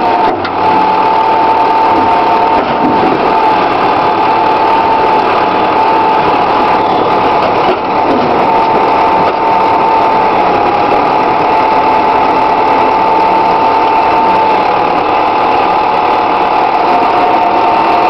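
Backhoe engine running steadily up close, with a constant high whine over it as the boom and bucket work.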